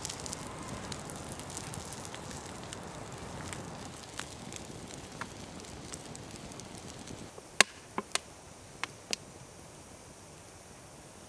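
Wood campfire crackling with scattered small pops, then five loud sharp snaps about seven to nine seconds in.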